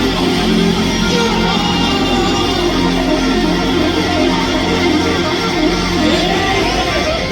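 Live rock band playing loud and steady, with electric guitar strumming out front.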